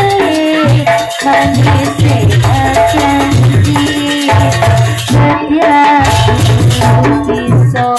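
Loud jaranan gamelan music: a held, gliding melody line over a pulsing drum beat and rattling percussion.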